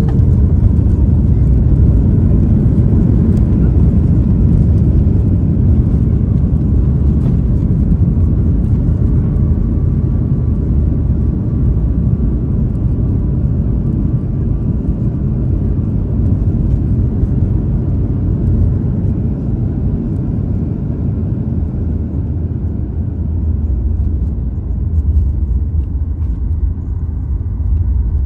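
Inside an airliner's cabin during the landing rollout: a loud, low rumble of jet engines and wheels on the runway that slowly fades as the aircraft slows.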